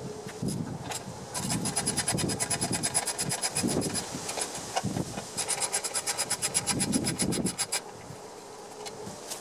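Ratchet wrench clicking in two quick runs of even clicks, with a short pause between them, as bolts on the mower engine's recoil starter housing are turned out.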